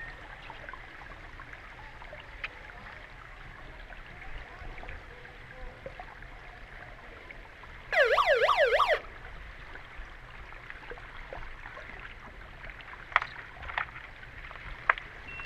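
Underwater hockey referee's underwater siren heard through the water: a warbling electronic tone that sweeps rapidly up and down for about a second, near the middle, over a steady underwater hiss. It is the signal that stops play. A few sharp clicks follow near the end.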